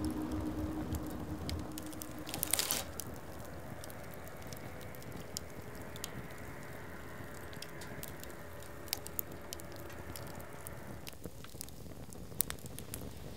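Wood campfire crackling: a steady hiss with scattered sharp pops and snaps, and a brief louder rush a couple of seconds in.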